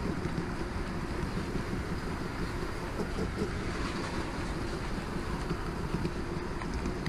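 HO-scale model train rolling along the track, heard from a camera car riding in the train: a steady low rumble of wheels and motor, with a few faint clicks.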